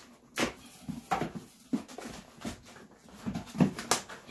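Hands rummaging in a cardboard shipping box, crinkling packing material and bumping the cardboard in a run of short rustles and knocks.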